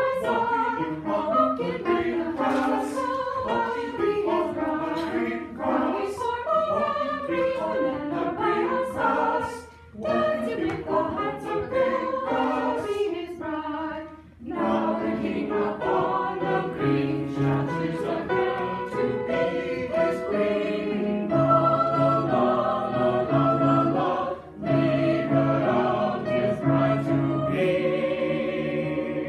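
A choir singing a passage, with brief breaks about ten, fourteen and twenty-four seconds in, and stopping at the end.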